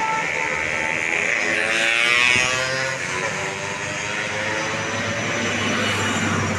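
A bus driving past close by, its noise sweeping down in pitch as it passes about two seconds in, followed by a steady low engine drone.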